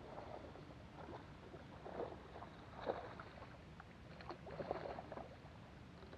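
Water splashing softly at the boat: a few irregular splashes roughly a second apart, over a faint steady low hum.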